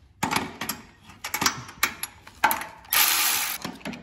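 Ratchet wrench with a socket tightening the exhaust nuts on a Kohler KT735 twin-cylinder engine's head, clicking in several short bursts, the longest about three seconds in.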